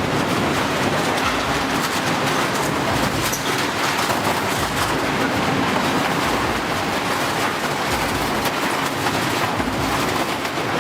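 Industrial shredder running and grinding material, a dense steady crunching and rumbling with constant crackle.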